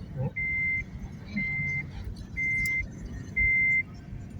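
A vehicle's reversing alarm beeping as it backs up: a steady high beep about half a second long, once a second, four times, over a low engine rumble.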